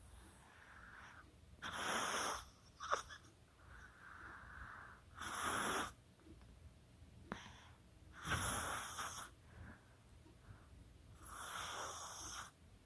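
Chihuahua snoring: four loud, hissy snore breaths about three seconds apart, with softer breaths between them and a couple of short clicks.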